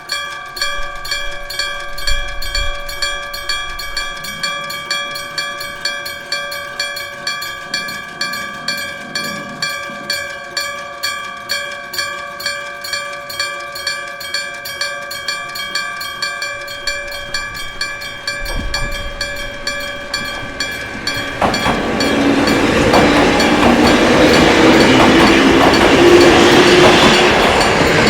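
Railway level crossing's electric bell, a hammer-struck gong, ringing steadily at about two and a half strokes a second. About twenty-one seconds in, a train comes through the crossing, its rumble louder than the bell.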